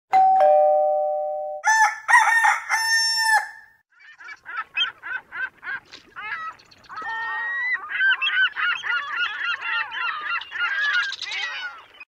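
A rooster crows loudly, then small birds chirp in quick repeated calls that build into a busy dawn chorus of birdsong.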